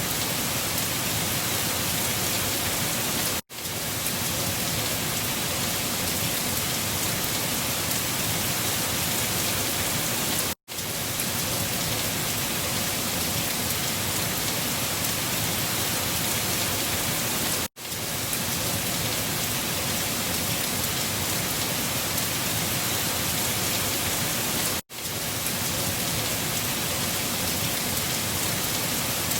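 Steady, even rushing noise of a wind-storm recording, spread evenly from low to high pitch. It is looped, so it cuts out for a split second about every seven seconds and then comes straight back.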